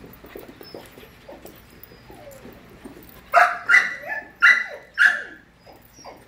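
A five-month-old puppy barking at play, four sharp barks in quick succession a little past halfway through, after a few quieter play noises.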